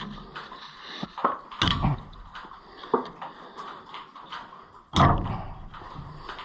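Scattered clicks and knocks of hand work on a combine's roller-type gathering chain and its connector links, with two louder knocks, one about a second and a half in and one about five seconds in.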